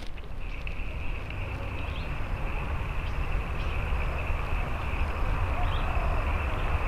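Rural outdoor ambience: a steady high insect drone, with a few short faint chirps over it and a low rumble of wind on the microphone.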